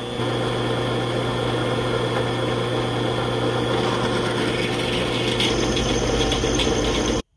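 Drill press motor running with a steady hum while the bit drills into 3/16-inch steel plate, with a rougher cutting noise building about four seconds in. The sound stops abruptly near the end.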